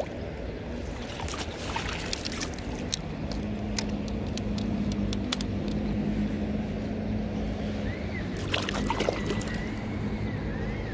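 Rushing river water at the bank, with a low motor hum that builds through the middle, scattered sharp handling clicks, and a few short high chirps near the end.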